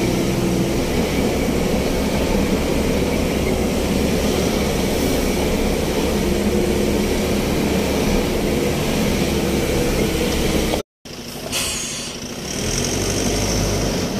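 Loaded truck's engine running steadily on a hill climb. About eleven seconds in the sound cuts off abruptly, then a quieter engine sound follows.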